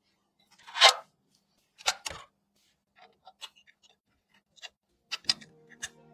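Sharp clicks, taps and a brief louder scrape of small hardware parts being handled and fitted, as in assembling a small PC case; music starts near the end.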